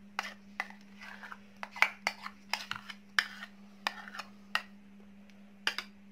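Spoon clinking and scraping against a bowl as mayonnaise is scooped out and dropped onto diced vegetables: a dozen or so irregular clicks, over a steady low hum.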